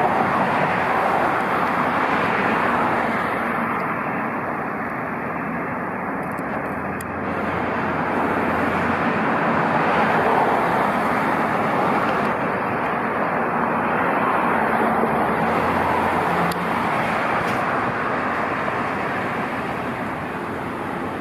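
Street traffic: cars passing on a multi-lane road, a steady rush of tyres and engines that swells and eases as vehicles go by.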